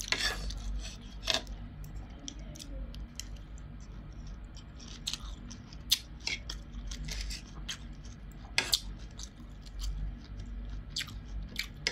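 Metal fork and spoon clinking and scraping against a plate of rice, in scattered irregular clicks.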